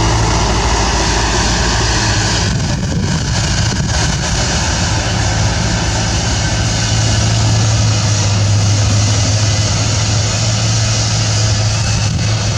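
Bulldozer's diesel engine running steadily at one pitch while it works, a loud constant low hum.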